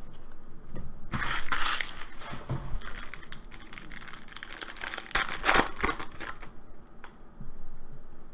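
Crinkling and rustling of clear plastic card sleeves and trading cards being handled, with many small clicks and scrapes. There are two louder bursts of crinkling, about a second in and about five seconds in.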